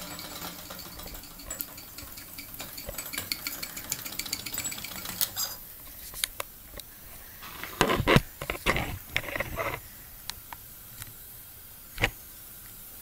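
Mamod TE1A toy steam traction engine running, its small mechanism making a fast metallic rattling tick for about five seconds before the running sound falls away. A burst of loud metallic clatters and knocks follows a couple of seconds later, then one sharp knock near the end.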